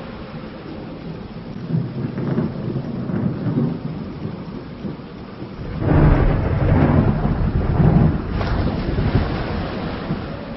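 Thunderstorm: steady rain with rolling thunder. A low rumble builds about two seconds in, and a louder peal comes about six seconds in, rolls on for a couple of seconds and fades.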